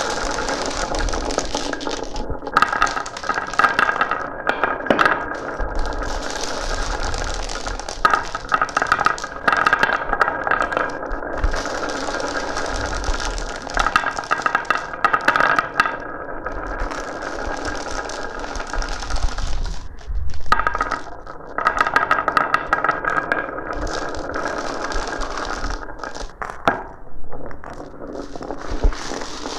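Glass marbles rolling and clattering down a marble run: a steady rolling rattle that swells in stretches of a few seconds, with frequent sharp clicks as the marbles strike the track and each other.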